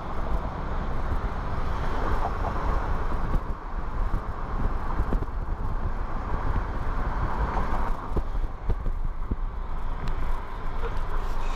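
Car driving: steady engine and road noise heard from inside the cabin.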